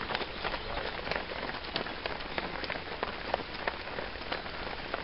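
Footsteps of a stream of runners slapping and splashing on a wet tarmac road, an irregular patter of several steps a second over a steady hiss.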